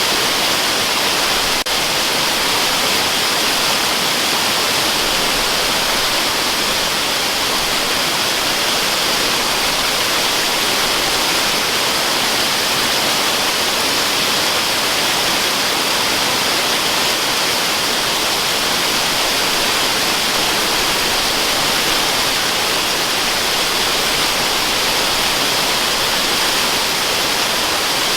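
Waterfall: a steady, even rush of falling water, bright and hissy with little low rumble.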